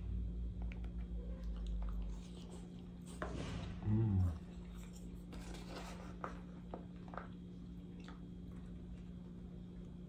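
A person chewing and eating saucy food with chopsticks, heard up close: wet mouth sounds and small clicks, with a brief low hum from the eater about four seconds in. A steady low electrical hum sits underneath.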